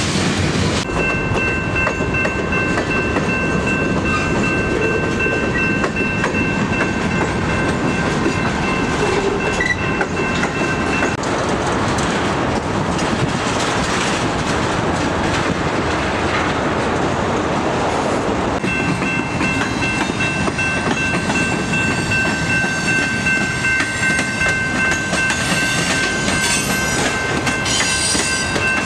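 Freight train cars rolling past close by, steel wheels clattering steadily over the rail joints. A steady high ringing tone sits over the clatter for the first third and again from about two-thirds of the way in.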